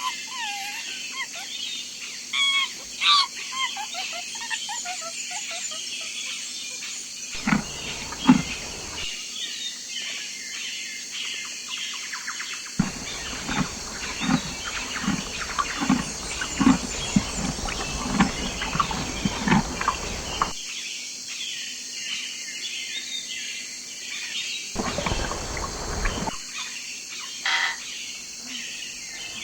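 Birds chirping and calling outdoors, with repeated curved chirps in the first few seconds over a steady high-pitched background chorus. Three stretches of low rumble with a series of low pulses come and go, the longest running for several seconds in the middle.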